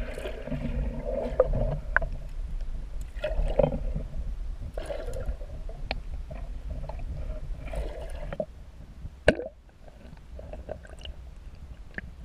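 Water gurgling and churning around a submerged camera as a hooked chain pickerel splashes near the surface, with a low rumble and scattered clicks. The rumble drops away about eight seconds in, and a sharp knock comes just after, leaving quieter gurgling.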